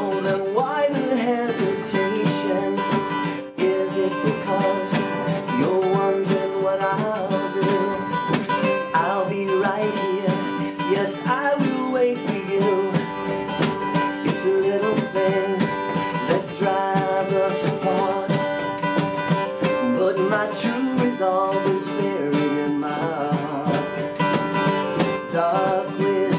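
A rock band playing live, with guitars carrying the music over drums and cymbals and no clear sung words.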